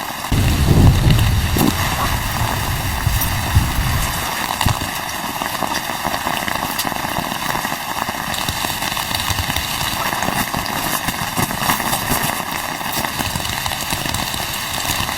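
Steady rain pattering, with a low rumble underneath for the first few seconds.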